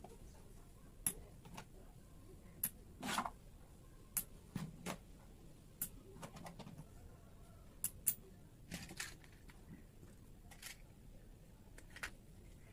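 Faint, scattered clicks of metal coins being set down one at a time onto a stack on a card.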